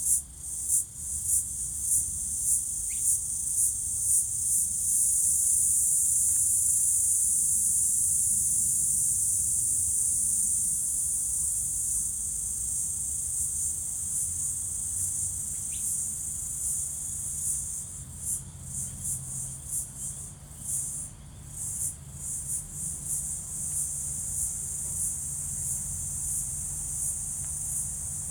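Crickets chirping in a high-pitched chorus. The chirps pulse about once a second at first, merge into an unbroken trill for about ten seconds, then break back into quicker pulses.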